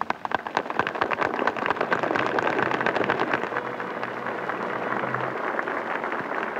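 Crowd applauding: dense clapping at first that settles into a softer, even patter in the second half.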